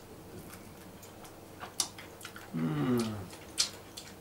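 Wet mouth clicks and smacks of someone eating a fried king prawn with his fingers, with one short hummed "mmm" of enjoyment falling in pitch about two and a half seconds in.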